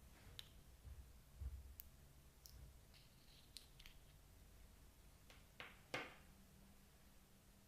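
Near silence broken by faint scattered clicks and small squishes of slime being mixed by hand, the most distinct a couple of seconds before the end.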